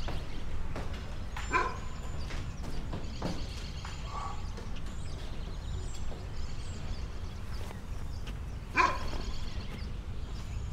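Early-morning background ambience: a steady low rumble with faint bird chirps, and an animal calling out twice, about a second and a half in and again near the end.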